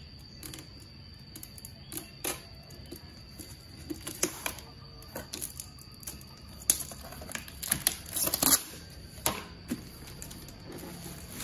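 Utility knife slitting tape along a cardboard box, with irregular clicks and scratches, then cardboard scraping and rustling as the box is pulled open; the loudest scrapes come about eight seconds in.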